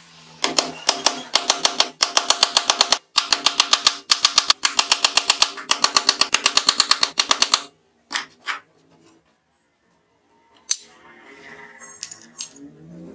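A steel chisel being struck in quick repeated taps, about six a second, as it chops a hinge recess into plywood, with a short break partway through; it stops just before 8 s. Two single knocks follow, then a sharp click and some light clatter near the end.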